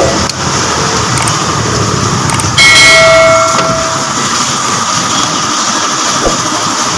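A horn sounds once, a single steady pitched blast of about a second, near the middle, over steady background noise; a couple of light knocks come before and after it.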